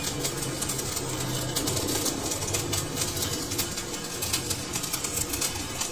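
Lathe running in a workshop: a steady low hum under a dense hiss of rapid, irregular clicks.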